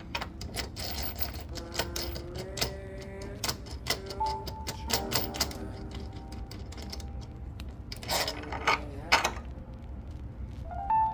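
Socket wrench clicking rapidly in sped-up footage as it turns the nut of a carriage-bolt jig pressing a door-hinge bushing out, with two louder rattling bursts about eight and nine seconds in.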